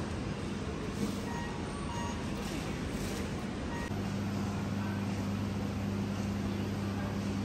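Supermarket ambience: a steady background hiss with faint murmuring voices and a few faint short beeps in the first half. From about four seconds in, a steady low hum joins.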